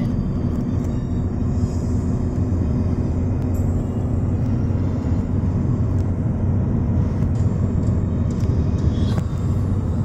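Steady low rumble of a car on the road, heard from inside the cabin: tyre and engine noise at an even level.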